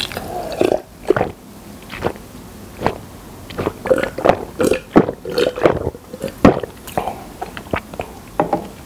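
A person gulping water from a plastic cup in a long drink, swallow after swallow at about two a second, picked up close on a lapel microphone.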